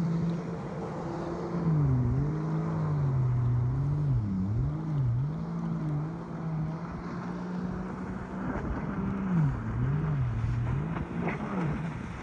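Engine of a distant high-speed motorboat running hard, its pitch dipping and rising again and again, over a steady hiss of wind and choppy water.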